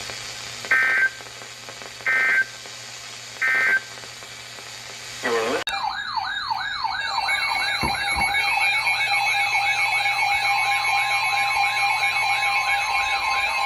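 Emergency Alert System signal: three short screeching digital data bursts, the end-of-message code closing the previous warning, then about halfway through a loud warbling, siren-like alert tone sweeping up and down about twice a second, joined near the end by a steady tone.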